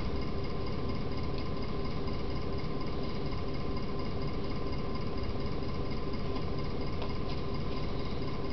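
Steady background hum and hiss with a faint constant high tone, unchanging throughout, like a running machine or the recording's own noise; a couple of faint clicks.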